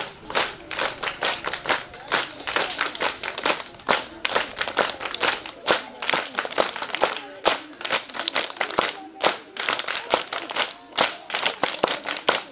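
A crowd of schoolchildren clapping their hands together in a steady rhythm, about three claps a second.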